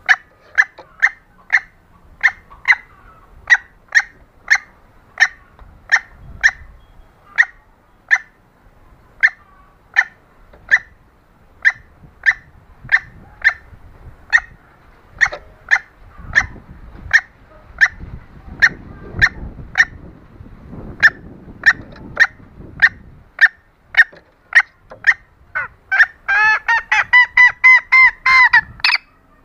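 Junglefowl hen lure call: short sharp clucks repeated steadily, about one or two a second. Near the end they give way to a fast run of about a dozen fuller, more tuneful clucks.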